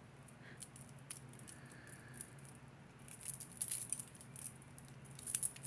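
Small pieces of jewelry such as beads and chain clinking and jingling as they are handled and pulled apart, in scattered light clicks that come thickest about three to four seconds in and again near the end. A faint steady low hum sits underneath.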